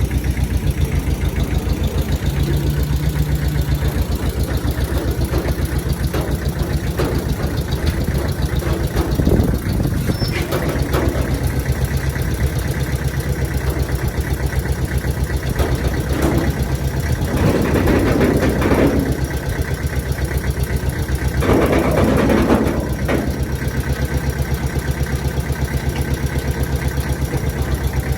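An engine idling with an even, rapid firing pulse, likely the loader that carries the bucket. It grows louder in two short stretches, about halfway through and again a few seconds later.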